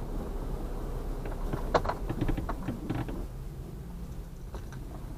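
Steady low engine rumble, with a short run of sharp clicks and knocks about two to three seconds in.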